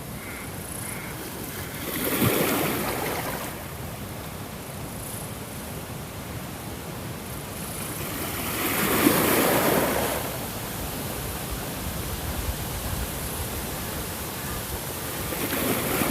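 Ocean waves breaking and washing up a shore, three surges about seven seconds apart over a steady hiss of surf.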